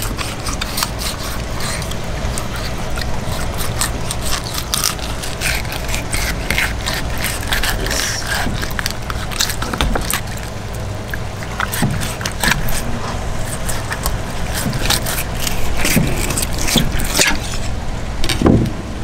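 A fillet knife scraping and clicking as it cuts along the backbone of a black belly rosefish, catching on the fish's big dorsal spines, in many short scrapes over a steady low hum.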